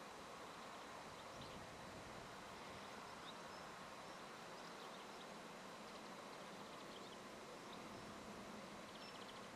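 Quiet open-air ambience: a faint steady hiss with scattered faint, high, short bird chirps, and a quick rapid trill near the end.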